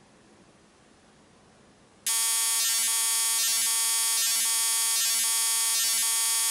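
Near-silent room tone, then about two seconds in a loud, harsh electronic buzz starts suddenly and holds steady, with a faint pulse a little under once a second: the synthesized sound of an end-logo sting.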